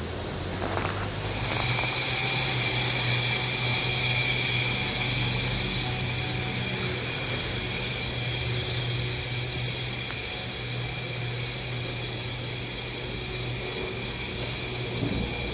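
Concrete pump truck running: a steady low engine hum, joined about a second and a half in by a steady high mechanical whine that holds to the end.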